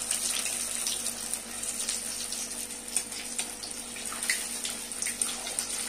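Paneer-stuffed bread balls deep-frying in hot oil in a steel kadhai: a steady sizzle with scattered small pops and crackles.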